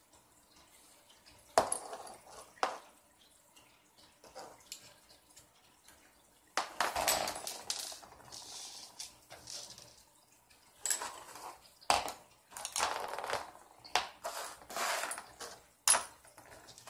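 Small hard parts and tools being handled by hand during work on an RC car: irregular clinks, rattles and scrapes, with a few sharp clicks.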